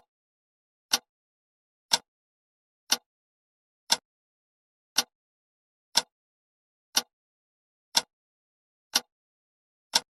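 Clock ticking, one sharp tick a second, with silence between the ticks.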